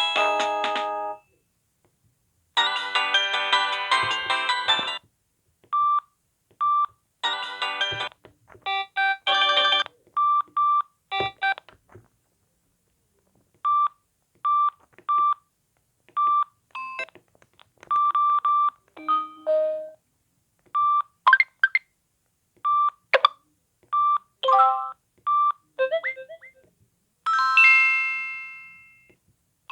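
A series of short polyphonic ringtones and alert tones from a Samsung SGH-X660 mobile phone, played one after another with brief silences between: short melodic clips, groups of high electronic beeps, and near the end a chime that rings out and fades.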